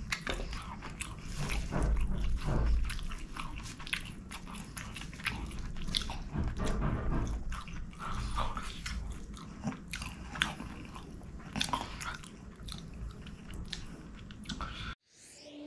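A man eating rice and chicken by hand, chewing close to the microphone: a steady run of small mouth clicks and chewing sounds that stops abruptly near the end.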